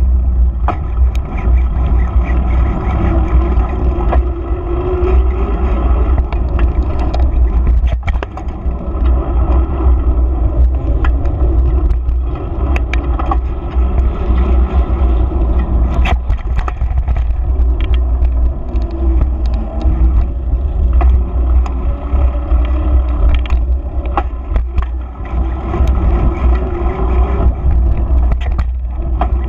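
Wind buffeting the microphone of a bicycle-mounted action camera while riding, over the steady hum of knobby mountain-bike tyres rolling on asphalt. Scattered sharp clicks and rattles from the bike going over bumps.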